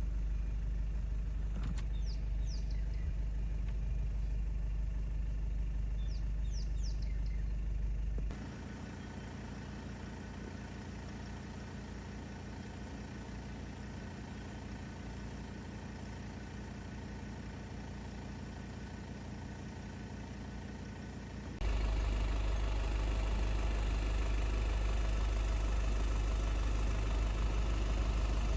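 A car's engine and road noise as a steady low rumble, with abrupt cuts about 8 and 22 seconds in. The middle stretch is quieter and more even. Birds chirp briefly a few times in the first several seconds.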